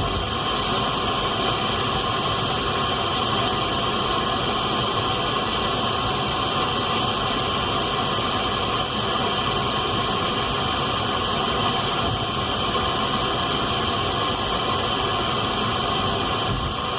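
Radio static: a steady hiss with faint humming tones running through it, unchanging in level.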